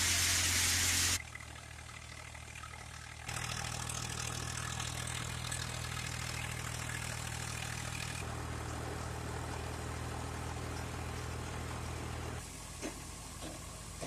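Tractor diesel engines running steadily while driving threshing and straw-handling machines. A loud rushing noise fills the first second, the engine hum changes abruptly several times, and a few knocks come near the end.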